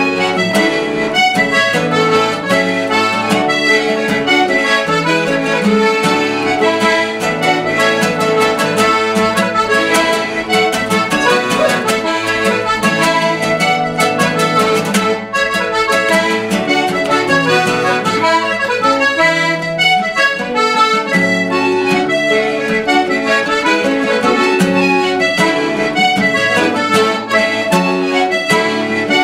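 Button accordion playing a lively Irish traditional dance tune, with strummed acoustic guitar accompaniment.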